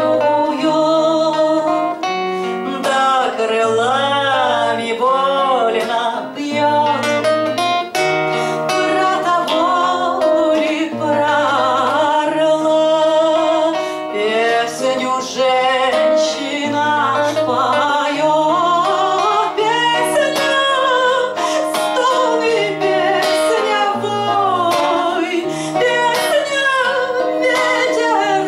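A woman singing a song to her own acoustic guitar accompaniment, with plucked chords and a bass line that changes note every second or two.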